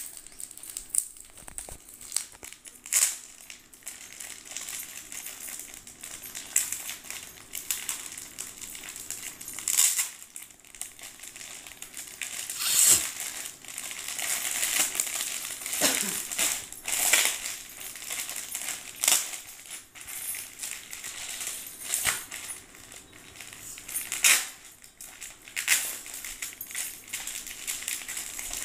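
Plastic packaging crinkling and crackling as it is handled and torn open: a courier mailer, then the clear plastic bag holding the handkerchiefs, with irregular sharper crackles every few seconds.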